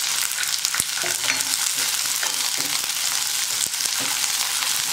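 Peeled shallots, garlic and ginger sizzling in hot oil in a kadai as the shallots are tipped in and stirred with a spatula. A steady frying hiss runs under scattered small clicks of onions and spatula against the pan.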